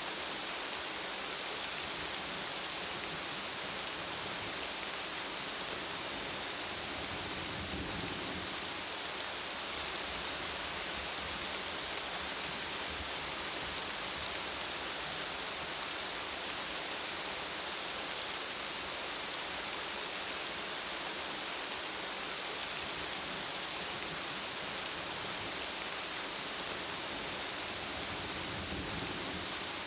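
Steady, even rainfall hissing without a break. A brief low rumble swells up about eight seconds in and again near the end.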